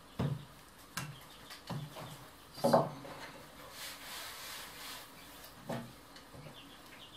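Wooden rolling pin knocking and rolling on a floured worktable as puff pastry dough is rolled out: a series of knocks, the loudest about two and a half seconds in. Between about three and a half and five seconds in there is a soft rubbing, as the pastry sheet is lifted and slid over the flour.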